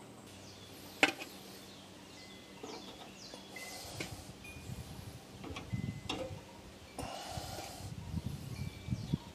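Metal tongs clicking and scraping against a grill grate and a metal sheet pan as bacon-wrapped pig shots are lifted off and set down, with a sharp click about a second in and a few more clicks and low handling noise after.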